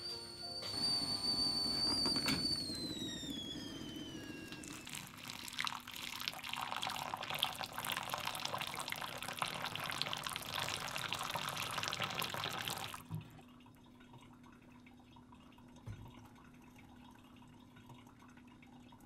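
Water poured by hand into a paper coffee filter on a thermos carafe: a steady splashing pour that stops suddenly about two-thirds of the way in, leaving faint dripping through the grounds. Before the pour, a high steady whistle falls in pitch and fades.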